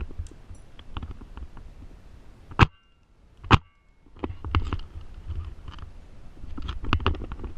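Two sharp cracks about a second apart, the loudest sounds here, amid light rustling and small clicks of gear being handled.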